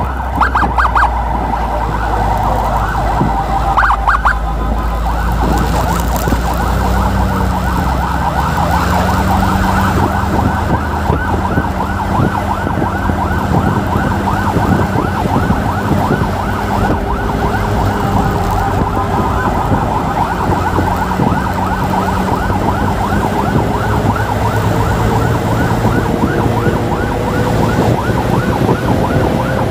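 Electronic emergency siren sounding in a fast repeating yelp, each whoop a quick rising sweep, over a motorcycle's engine note that rises and falls underneath.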